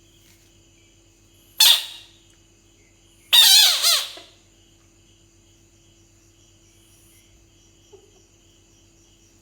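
Bullfrog giving two loud, high-pitched calls: a short one about a second and a half in, then a longer, wavering one a couple of seconds later.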